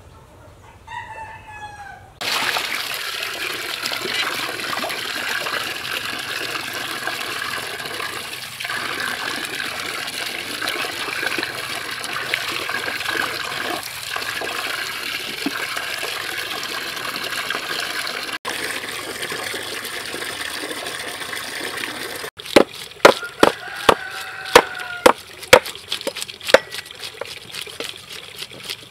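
Water from a hose pouring and splashing into a metal basin while large fish are washed in it, running steadily for about twenty seconds. It then gives way to a rapid series of sharp scraping strokes as the fish's scales are scraped off with a scale scraper. A bird calls briefly near the start, and again during the scraping.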